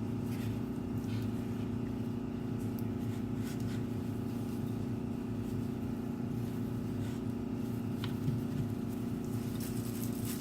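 Steady low mechanical hum, with a few faint light clicks and a sharper tap about eight seconds in.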